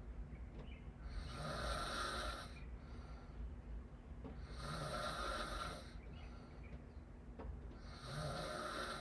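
A person snoring with the mouth open: three snores, about three seconds apart, with quiet breathing between.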